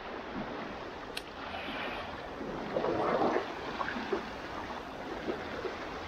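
Black Sea waves washing onto a beach, a steady rush of surf with a louder swell about three seconds in.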